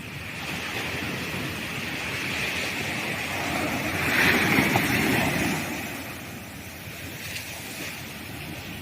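Sea waves breaking on a sandy beach: the surf swells to its loudest about four seconds in as a wave breaks, then eases back down into a steady wash.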